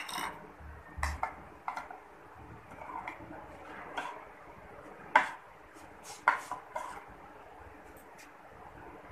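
Metal spoon clinking against a ceramic bowl while stirring spices into tamarind chutney: a dozen or so irregular, sharp clinks.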